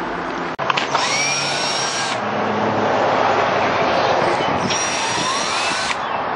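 DeWalt cordless drill backing screws out of a wooden concrete form, in two runs of about a second and a half each, the motor whine rising in pitch as it spins up.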